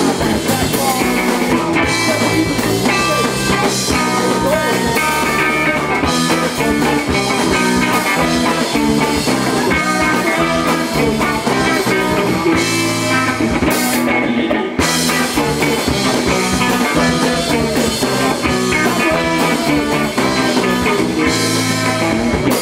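Live punk rock band playing loudly: electric guitar, bass and drums.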